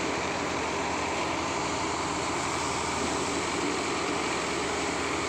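Hamidi paddy thresher running steadily as paddy bundles are fed in: the spinning threshing drum and blower fan make a continuous, even mechanical noise.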